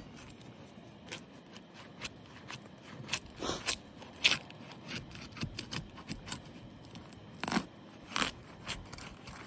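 Asphalt shingle sealant strip being broken loose: irregular crackling and scraping as the bonded shingle tab is pried apart, with a few sharper cracks, loudest about four seconds in and twice near the end. The adhesive bond is strong, so the release is hard going.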